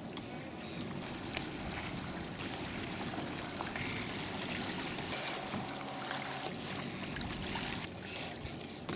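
Water trickling and splashing along a kayak's hull as it moves, with a faint steady hum underneath.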